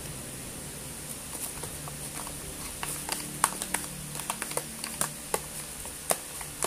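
Irregular clicks and taps of a plastic spoon against a plastic tub while slime is stirred and scooped, starting about a second and a half in.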